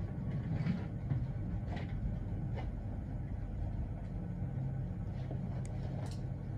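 A steady low rumble, with a few faint, short scrapes of a metal dental scaler picking paste off a model tooth.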